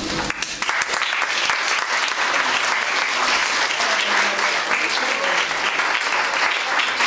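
An audience applauding, a dense, steady clapping that starts about half a second in.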